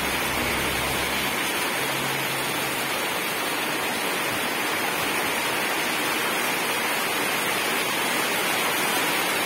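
Steady rain falling on a corrugated metal roof, an even hiss.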